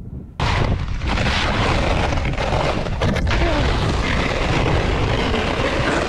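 Wind buffeting the microphone, a loud, rumbling rush of noise that starts abruptly about half a second in.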